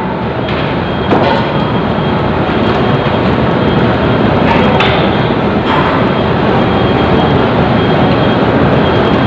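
Loud, steady rush and rumble of a moving vehicle, with a couple of short clicks.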